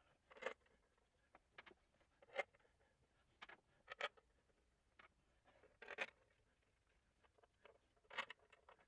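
Faint, scattered small clicks and scrapes of gloved hands handling metal parts at the front of an engine, with quiet gaps between them.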